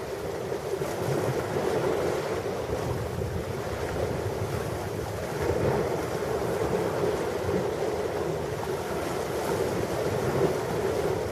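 Ocean surf: a continuous rush of waves that swells and eases every few seconds, with wind buffeting the microphone.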